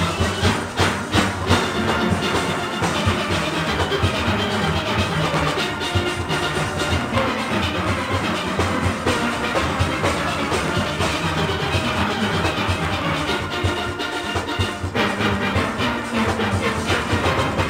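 Steel orchestra playing: massed steelpans over a drum kit and percussion keeping a steady rhythm, with the arrangement moving into a new section about fifteen seconds in.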